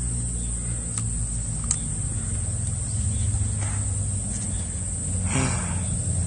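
A steady high-pitched insect drone over a low wind rumble. A single light click comes near the two-second mark, and a short rustling burst about five seconds in, as a freshly caught bass is handled.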